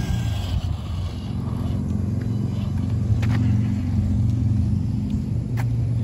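1990 Tamiya Toyota Hi-Lux Monster Racer RC truck's electric motor and drivetrain running as it drives up over pavement and concrete, a steady low hum with a few sharp clicks.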